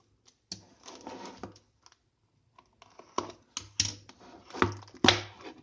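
Sellotape being picked at and peeled off small cardboard watch boxes while the boxes are handled: irregular crackles and clicks, with a sharp snap about five seconds in.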